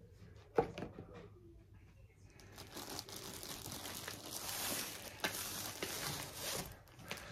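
A single sharp knock about half a second in, then paper rustling and crinkling from a couple of seconds in as a rolled diamond painting canvas in its white paper wrapping is handled and pushed open by hand.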